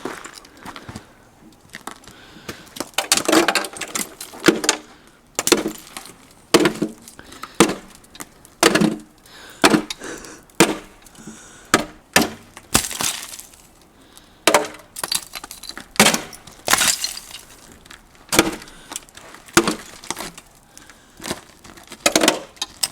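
Icicles being struck and broken off, a run of sharp knocks and cracks about once a second, with ice chunks clinking and shattering as they break.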